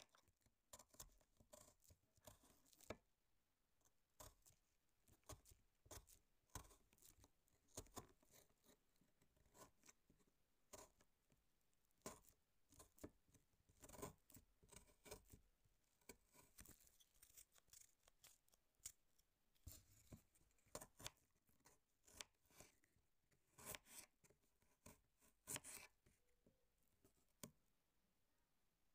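A kitchen knife slicing through fresh fruit on a plate (strawberries, then apple, then banana): a faint run of irregular, crisp cuts and small clicks of the blade meeting the plate.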